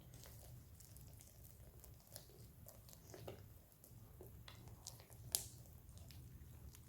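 Slime with hair gel mixed in being kneaded and stretched by hand: faint sticky squishes and small pops, with one sharper click about five seconds in.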